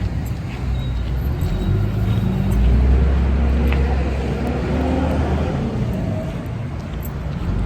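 A motor vehicle's engine running close by: a low rumble that grows loudest a few seconds in and then eases.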